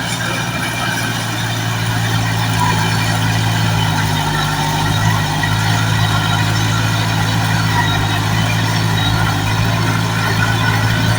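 Heavy machine's engine running steadily at a constant speed, with no revving.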